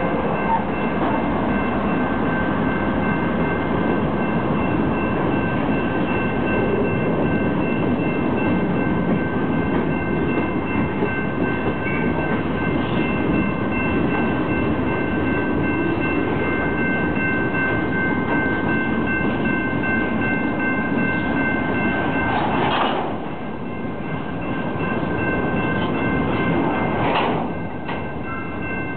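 Freight train's hopper cars rolling past on jointed track: a steady rumble and clatter of steel wheels on rail, with a steady high ringing over it. The loudness dips briefly twice near the end.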